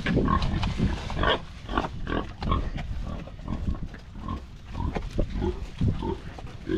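Pigs grunting: a steady run of short, irregular grunts with a few brief higher squeals mixed in.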